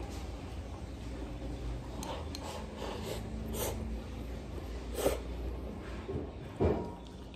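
A person eating from a ceramic bowl held up to the mouth: short clicks and scrapes and breaths through the nose over a low steady hum, the loudest sounds about five seconds in and near the end.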